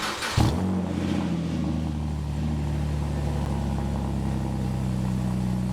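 A car engine starts about half a second in, runs briefly at a slightly higher speed, then settles to a steady idle.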